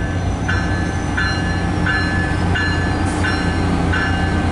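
MARC diesel locomotive standing at the platform with its engine idling in a steady low rumble while a bell rings about once every two-thirds of a second, seven strikes in all, as is usual before the train departs.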